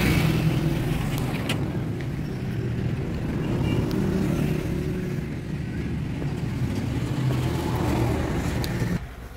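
Road traffic: the steady rumble of vehicle engines and tyres as vehicles pass along the road. It drops away suddenly near the end.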